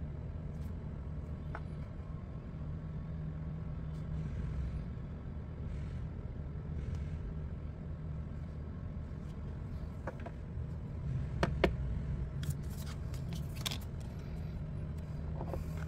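Steady low background hum with a few faint clicks and light taps between about ten and fourteen seconds in.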